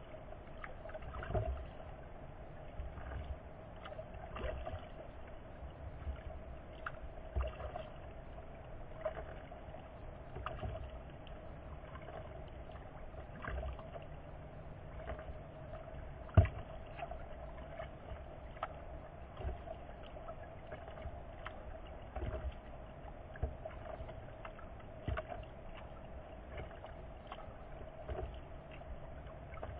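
Kayak paddling on a lake: irregular paddle strokes splashing and knocking against the hull every second or two, with one sharper knock about halfway through, over a steady faint hum.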